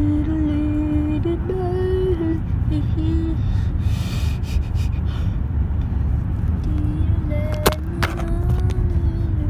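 Car road and engine noise heard from inside the cabin as a steady low rumble, with soft, sustained music notes over it. Two sharp knocks near the end.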